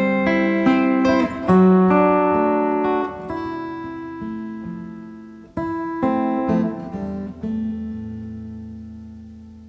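Yamaha FSX5 steel-string acoustic guitar played fingerstyle: single plucked notes in an arpeggio, ringing into one another. Near the end a chord is left to ring and slowly fades.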